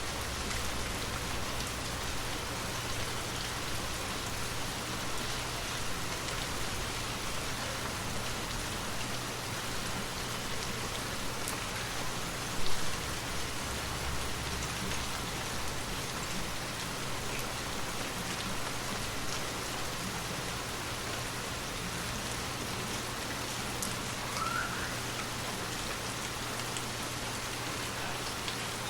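Light rain falling steadily, an even patter of drops on surfaces. There is one brief, louder knock a little before halfway through.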